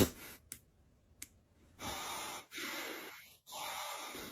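A person breathing hard through the nose, three breaths in a row starting about two seconds in, after a couple of faint clicks.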